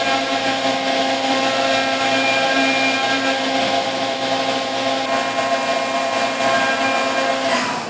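CNC machining centre's spindle driving a three-flute carbide endmill through 6061 aluminium under flood coolant: a steady whine with several held tones over the spray of coolant. The whine cuts off near the end.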